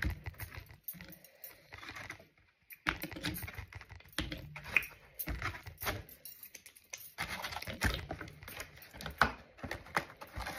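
Steamed oysters being eaten close to the microphone: chewing, with many quick clicks and taps in bursts and a couple of short pauses.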